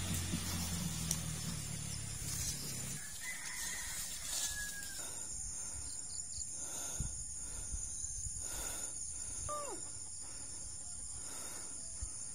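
A rooster crowing over a steady high buzz of insects, with a short falling bird call later on. A low steady hum stops about three seconds in.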